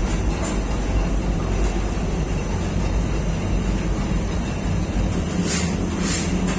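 Bakery machinery running: a loud, steady mechanical rumble from the motors of the lavash production line, with a few sharp ticks near the end.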